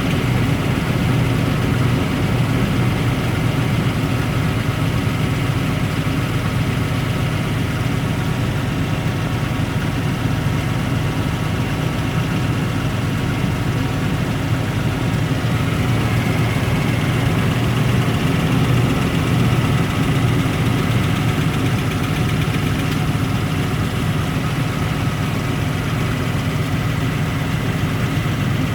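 1999 Nissan Pathfinder's VG33E 3.3-litre V6 idling steadily while still cold, with a rapid knock in its running that comes and goes until the engine is warm. The owner suspects lifters, a rocker arm, or an exhaust manifold gasket or other leak.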